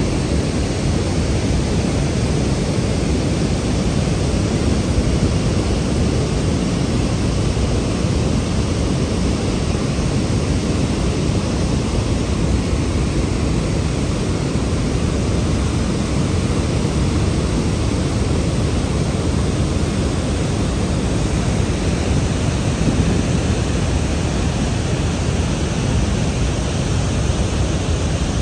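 Water discharging through open dam spillway gates and churning in the channel below: a loud, steady rush of noise with no break.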